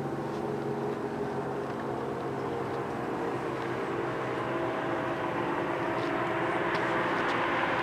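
ASC T-135 rotating electromechanical warning siren sounding a steady full-alert tone, heard as several held pitches. A hiss of road or traffic noise grows louder near the end.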